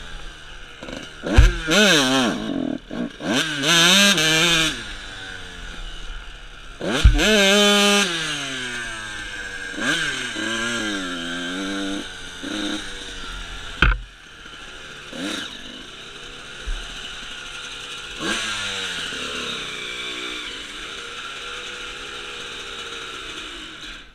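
Suzuki RM125's two-stroke single-cylinder engine revving up and down in sharp throttle bursts as the dirt bike is ridden, with a few sharp knocks. About fourteen seconds in it settles to low, slowly wavering revs.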